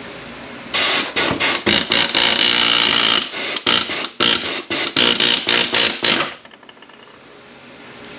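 Pneumatic air hammer run in a string of short, loud bursts for about five and a half seconds, working a ring gear loose on an automatic transmission, then stopping.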